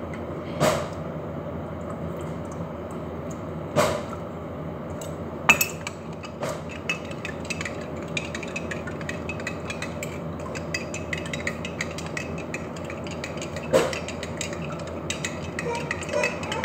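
Kitchen utensils and dishes knocking and clinking: a few separate sharp knocks, then a run of light clicks through the second half, over a steady low hum.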